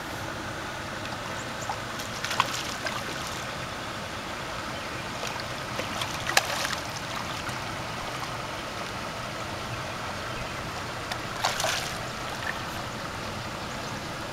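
Steady rush of shallow river water with three sharp splashes spread through it as a hooked white sucker thrashes at the surface.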